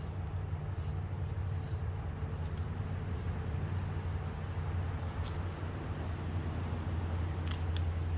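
Steady low rumble with a steady high-pitched insect chirring over it, and a couple of faint clicks near the end.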